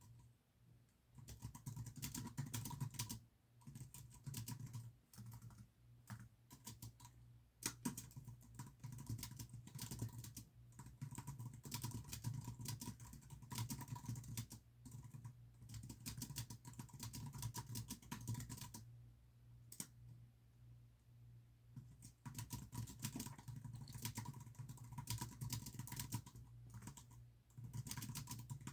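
Typing on a computer keyboard: runs of rapid keystrokes broken by a few short pauses, over a steady low hum.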